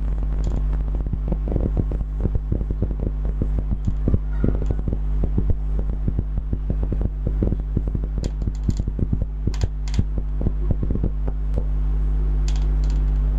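Marker writing on a whiteboard: a quick, irregular run of soft taps and scratches, with a few brief high squeaks, over a steady low electrical hum. The strokes stop about a second and a half before the end, and the hum grows slightly louder.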